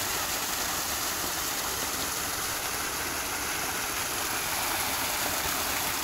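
Water in a rice-field irrigation ditch spilling over a small drop into a churning pool below: a steady rush of falling water.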